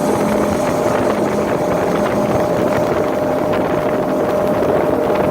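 Motorboat engine running steadily under way, with a steady drone over the rush of wind and water.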